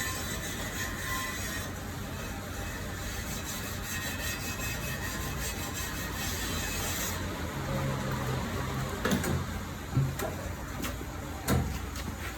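Tyre-change work on a car: a fast mechanical rattle of tools for several seconds, then a low intermittent hum and three sharp knocks of metal parts near the end.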